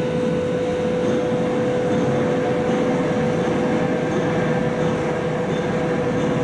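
A train running: a steady noise with a constant hum.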